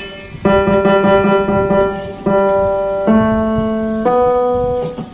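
Pianoteq modelled piano played from a keyboard: a slow line of single notes, four struck in turn and each held for about a second, ringing with a full, even tone.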